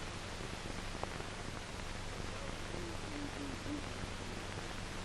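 Steady hiss and low hum of an old optical film soundtrack, with a few faint short tones about three seconds in.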